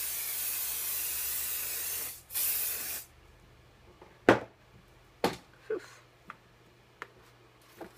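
Aerosol can of Crafter's Companion Spray and Shine sealant spraying in a steady hiss that breaks off about two seconds in, then a short second burst that stops about three seconds in. A few sharp knocks and taps follow, the loudest about four seconds in.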